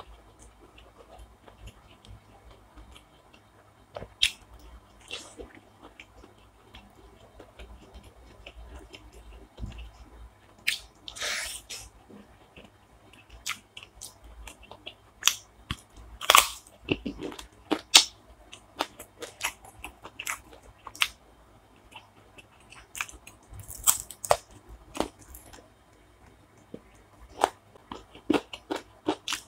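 A person eating close to the microphone: chewing and biting food, with irregular sharp clicks and short bites scattered throughout, loudest in the middle.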